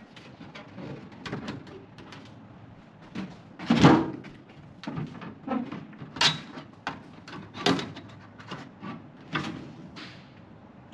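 Clicks, knocks and rattles of plastic and metal parts being handled on a microwave while its light cover and clips are refitted, with the loudest knock about four seconds in.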